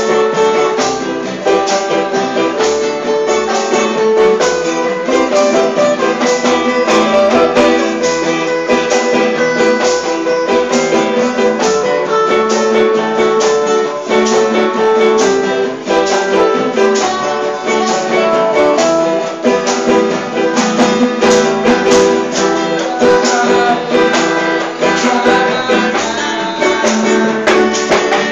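Band music led by plucked and strummed guitar, with a steady rhythmic strum and sustained notes; an instrumental stretch of the song with little or no singing.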